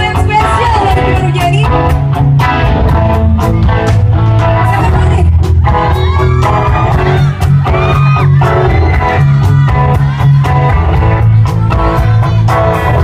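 Live rock band playing at full volume: electric guitars, bass and drums with a steady beat, and a sung melody over them.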